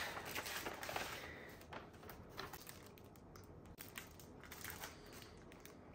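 Faint, scattered rustling and crinkling of paper as a printed comic book is slid out of a kraft paper envelope and handled.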